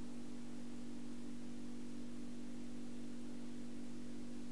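Steady low electrical-sounding hum, several constant tones over an even background hiss, with no change in level.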